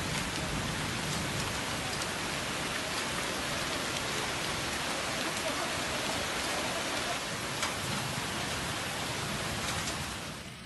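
Heavy rain pouring in a steady hiss onto a flooded street.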